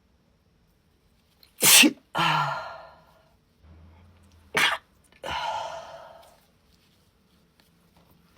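A woman sneezing twice in a sneezing fit, about three seconds apart; each sneeze is a sharp, loud burst that trails off into a voiced, fading tail.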